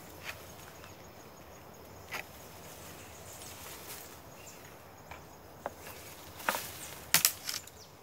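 Scattered rustles and knocks of a long wooden pole with a hook worked up into a tree's branches and leaves, a few sharp clicks, the loudest near the end.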